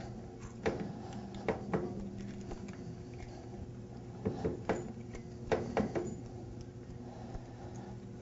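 Light metallic clicks and taps, a few at a time, as a bolt is threaded by hand into the waterjet intensifier's directional valve to hold it in place, over a steady low hum.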